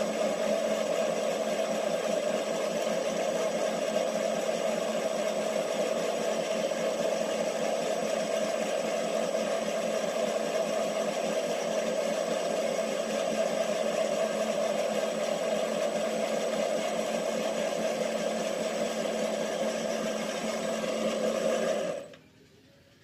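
Benchtop metal lathe running, a steady motor and spindle whine with several fixed tones, with the chuck spinning. About 22 seconds in the lathe is switched off and the sound stops suddenly.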